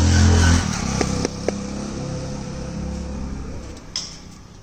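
A motor vehicle's engine passes close by, loudest at the start and fading away over about four seconds. A few light clicks sound about a second in.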